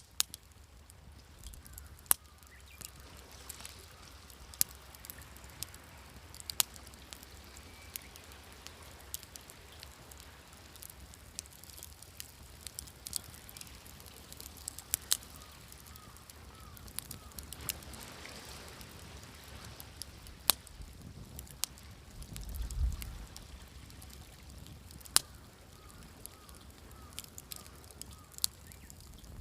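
Wood fire crackling with scattered sharp pops, over a soft, steady wash of waves. A low swell rises and falls about 22 seconds in.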